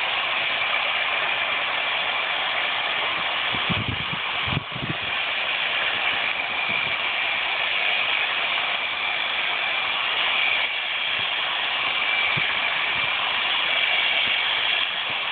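A small engine runs steadily without a break, a faint high whine riding over a hiss.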